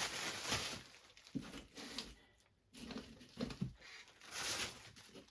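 Potatoes being handled and sorted into bags: rustling of the bags and skins with several short dull knocks as potatoes are set down.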